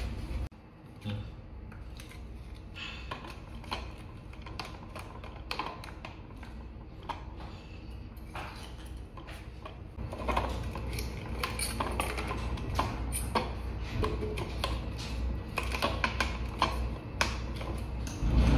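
Irregular hard plastic clicks and knocks as PVC pipe pieces and elbow fittings are handled, set down and pushed together in a dry fit, coming more often from about ten seconds in.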